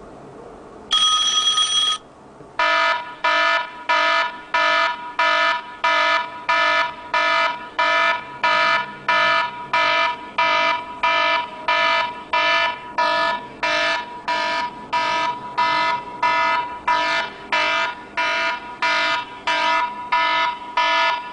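Phone ringtone in an alarm style: one long electronic beep, then rapid repeating beeps, about two a second, each a chord of several tones.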